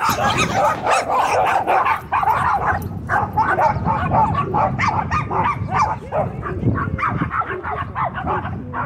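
Several dogs barking and yipping over one another in a busy, unbroken chorus while they play.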